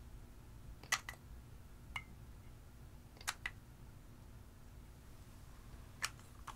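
A few short sharp clicks and taps, some in close pairs, from a glass nail polish bottle and its brush cap being handled, over a faint low hum.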